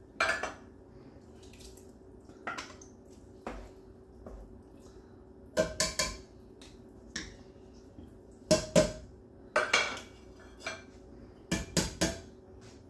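Kitchen utensils clinking and knocking against a Dutch oven while clams are stirred into a pot of chowder: sharp clinks in small clusters of two or three, a couple of seconds apart.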